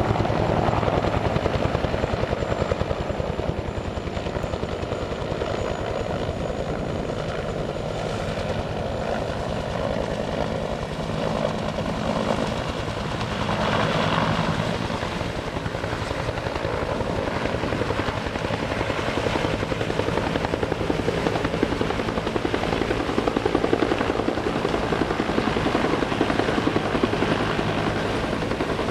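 Two-bladed Bell helicopter waterbomber hovering low while it refills with water, the rotor chopping steadily. The blade beat swells briefly about halfway through.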